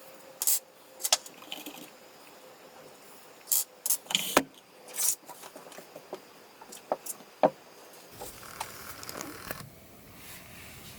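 Hands handling small hard objects on a work surface: scattered clicks and knocks, with a short rustle near the end.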